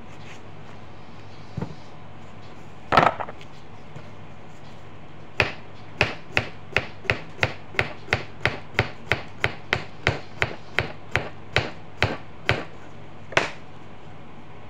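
Knife slicing a cucumber on a cutting board: a thump about three seconds in, then a steady run of about twenty quick chops at roughly three a second as the blade strikes the board.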